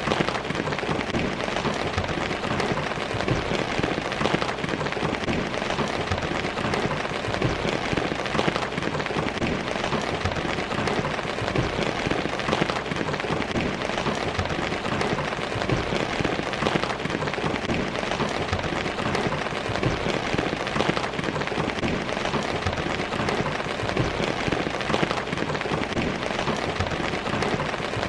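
Steady heavy rain falling and pattering on a surface, a dense even hiss of many drops.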